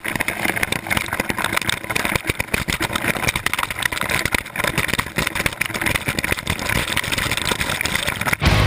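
Close rushing and splashing of creek water pouring over rock onto the camera, with dense crackling spatter of drops hitting the housing. Rock music with guitar and bass cuts in just before the end.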